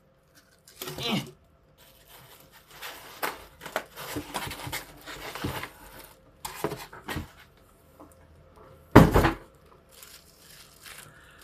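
Styrofoam packing and packaging being handled and pulled out of a box: irregular scraping, rustling and crinkling with scattered small knocks, and one louder thump about nine seconds in.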